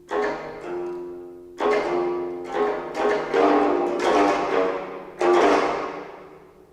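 Geomungo ensemble: four Korean zithers, each tuned differently (scordatura), struck with bamboo plectra in a series of sharp plucked notes that ring and decay. The notes come closer together in the middle, then a final loud stroke about five seconds in rings out and fades away.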